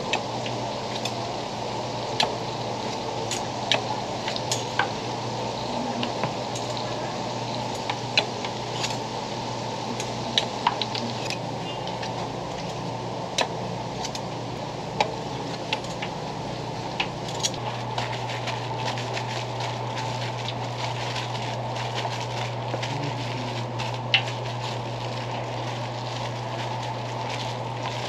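Hot oil sizzling in a deep fryer, with irregular sharp pops and crackles throughout, over a steady low hum that gets a little louder about two-thirds of the way in.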